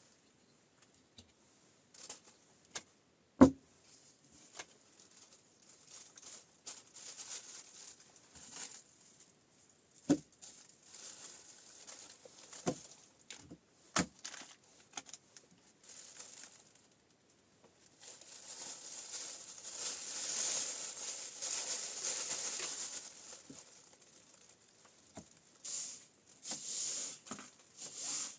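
Scattered knocks and taps of things being handled, the loudest about three and a half seconds in, then about six seconds of rustling and crinkling starting around eighteen seconds in.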